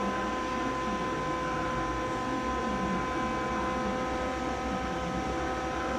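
Steady machinery hum with several constant whining tones over a low drone, unchanging throughout.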